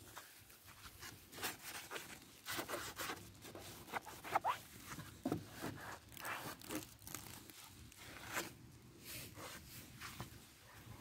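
Soapy sponge scrubbing over a foam-covered scooter's plastic bodywork: irregular wet rubbing strokes, with a brief squeak about four seconds in.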